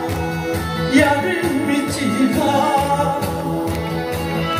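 Karaoke backing music for a Korean song, with a steady beat and a melody line over it, played through the hall's PA speakers.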